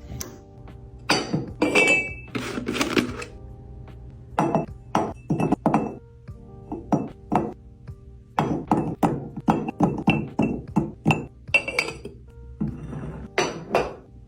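Hard containers and kitchen items being set down and restocked: a run of separate clinks and thunks, some with a short glassy ring, over soft background music.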